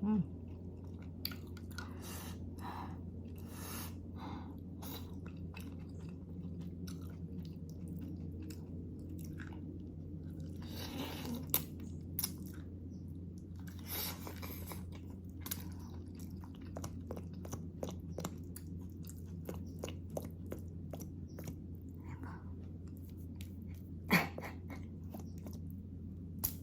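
Close-up chewing of tender beef shank in kaldereta sauce: soft, wet, irregular mouth clicks and smacks, with two longer noisy sounds about 11 and 14 seconds in and a sharper one near the end. A steady low hum runs underneath.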